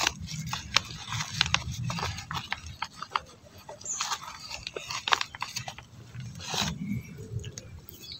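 Gloved hand working and crumbling soil inside a plastic polybag: irregular scraping, crackling and rustling of earth against the plastic.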